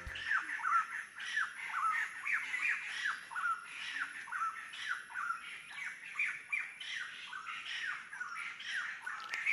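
Birds calling in the forest: a steady run of short, squawky, downward-slurred notes, several a second, some overlapping.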